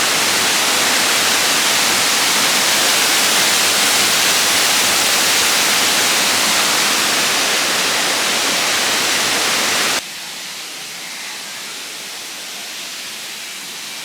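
Steady rush of a large waterfall, loud, then dropping suddenly to a much lower level about ten seconds in.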